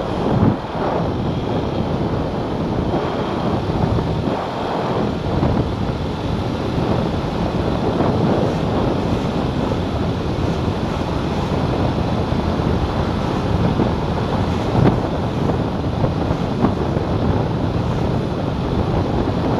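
Steady wind rush over a helmet-mounted camera's microphone while riding a yellow Aprilia RS4 125 at about 30 mph, with the motorbike's engine running under it.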